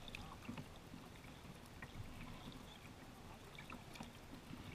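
Faint water sounds of a kayak being paddled on calm water: scattered drips and small splashes from the paddle blades over a low rumble.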